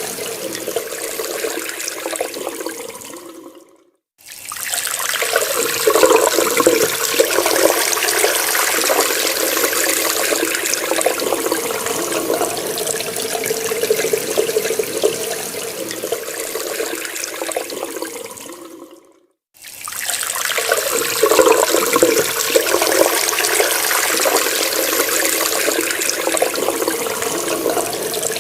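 Water running from a tap in a steady splashing stream, fading out to a brief silence twice, about fifteen seconds apart, and starting up again each time.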